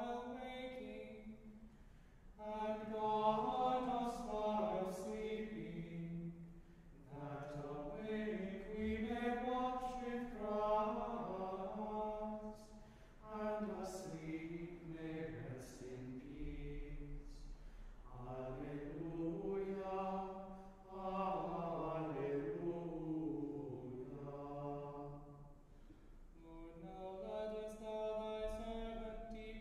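Small group of men chanting plainsong together, in sung phrases with short pauses for breath between them.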